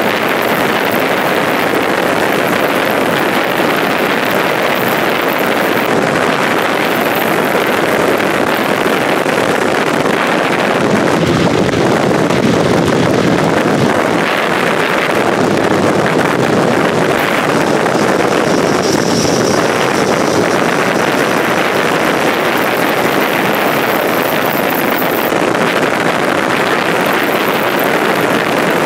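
Steady rush of wind on the microphone with road noise, recorded from a vehicle moving at about 75 mph on a highway.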